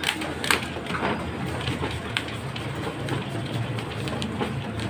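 A handheld stapler snapping shut on copied pages twice near the start, then paper being shuffled and handled with a few lighter clicks, over the steady mechanical running of a photocopier.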